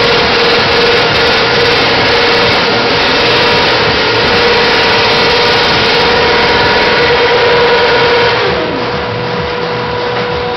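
BMW motorcycle engine revving loud, held at high revs for about eight seconds; then the revs fall away and it drops quieter near the end.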